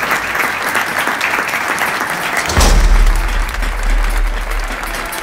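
Many people clapping. About halfway through, a deep low boom comes in and holds as a low drone while the clapping thins.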